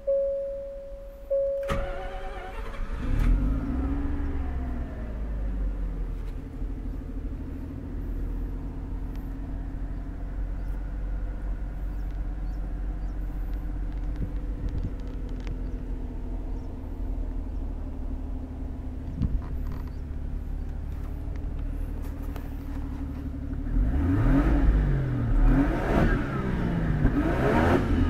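Mazda Cosmo 20B three-rotor twin-turbo rotary engine being started: a warning chime tone repeats, the starter cranks, and the engine catches about three seconds in with a brief flare of revs before settling to a steady idle. Near the end it is revved several times in quick blips.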